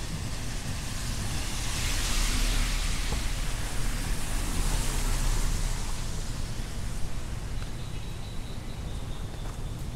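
A vehicle passing close by on a city street: a hiss of tyre and engine noise swells over about a second and a half, holds for a few seconds, then fades away over a steady low traffic rumble.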